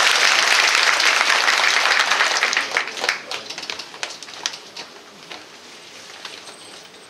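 Audience applauding, a dense patter of clapping that thins to a few scattered claps about three seconds in and dies away soon after.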